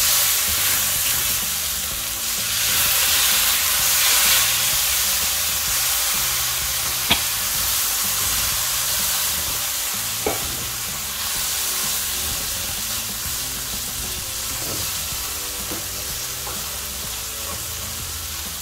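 Spice paste with shallots, lemongrass and spring onion sizzling in oil in a stainless-steel wok while it is stirred and scraped with a spatula. Two sharp clicks, about seven and ten seconds in.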